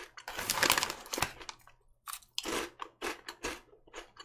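A mouth crunching and chewing crisp Korean shrimp-flavour crackers: a dense run of crackling crunches in the first second, then a string of separate, irregular crunches as they are chewed.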